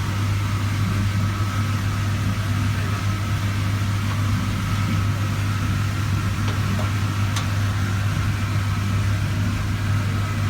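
Steady electric motor hum with a strong low drone and a faint high whine, with one light tick about seven seconds in.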